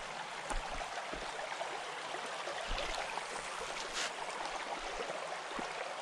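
Shallow creek water running over stones and gravel: a steady, even rush, with a few faint ticks.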